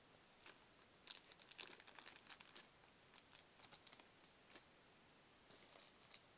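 Clear plastic sleeve around a new smartphone crinkling faintly in quick irregular crackles as the phone is handled and slipped out of its box. The crackles come densest about a second in, thin out by about four and a half seconds, and come again briefly near the end.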